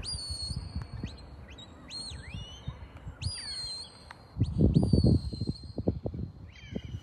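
A shepherd whistling commands to a working sheepdog: a string of short, high, clear whistled notes, some held level and some rising sharply. A loud gust of wind rumbles on the microphone about four and a half seconds in.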